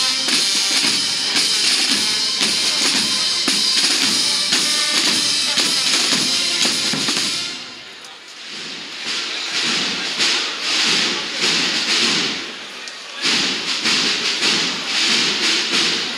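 Marching band of brass and drums playing a march, with a steady drum beat under the brass, until it stops about halfway through. Uneven crowd noise follows.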